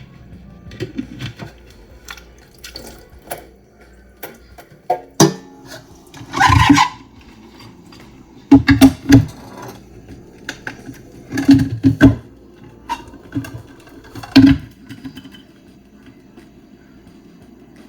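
Kitchen work sounds: scattered knocks and clinks of pots and utensils, with several short louder clattering bursts.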